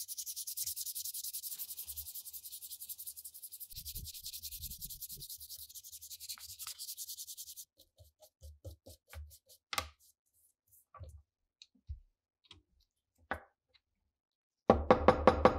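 A bare wooden SKS rifle stock being hand-sanded with sandpaper: quick, even back-and-forth strokes that stop about halfway through. A few light taps and clicks from handling follow. A short, loud burst comes near the end.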